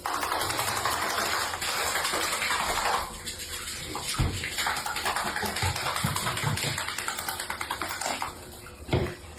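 Running water splashing steadily, loudest over the first three seconds, with a couple of dull thumps later.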